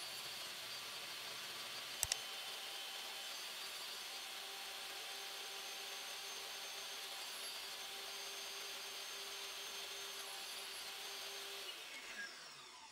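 Table saw running, cutting a shallow dado in a plywood strip, with a steady whir; two sharp clicks sound about two seconds in. Near the end the saw is switched off and winds down in falling pitch.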